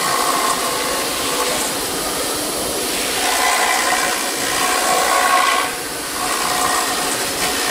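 CNC router spindle milling an EPS foam block turning on a rotary axis: a steady machine hiss with a faint high whine, as the bit cuts the foam. The tone and level swell and ease as the cut goes on, with a short dip about six seconds in.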